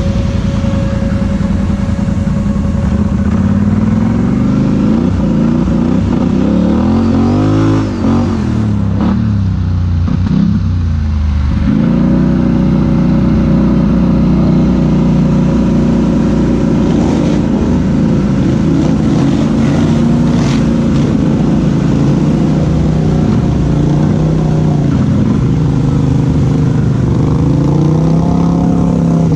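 Polaris Sportsman 850 Highlifter ATV's twin-cylinder engine running while riding, revving up and down for the first ten seconds or so, then holding a steady pitch.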